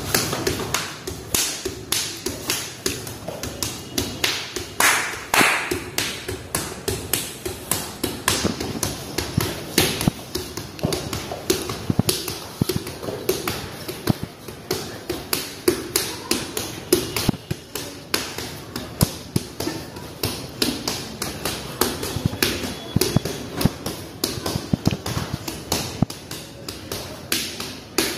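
Bare-fisted punches landing on a man's stomach in a fast, unbroken string of slapping thuds, several a second.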